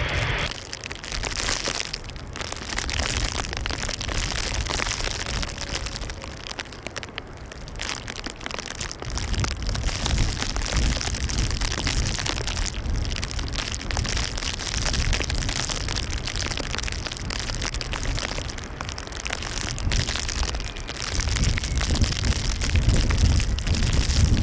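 Gusty wind on the microphone over a low rumble of aircraft jet engines, the rumble growing louder near the end.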